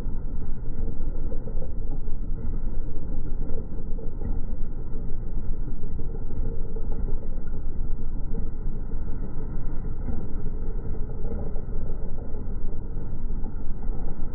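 A paramotor's engine and propeller, slowed down by 240 fps slow-motion playback into a deep, steady rumble with no clear pitch.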